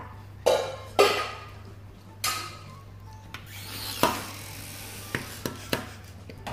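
Metal fork and spoon striking and scraping a stainless steel compartment tray: four loud clinks that ring briefly in the first two-thirds, then a few lighter taps.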